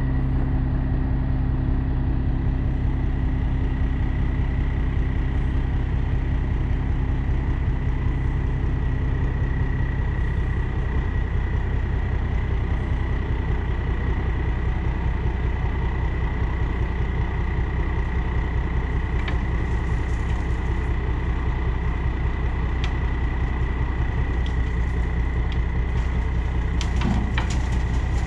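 Heavy diesel dump truck engine running steadily with a thin, steady high whine over it, while the truck backs up and tips its bed. Near the end come a few sharp knocks and rattles as the clay load starts to slide out of the bed.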